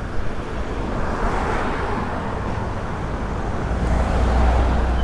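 Road traffic noise, with cars passing and a low rumble swelling near the end.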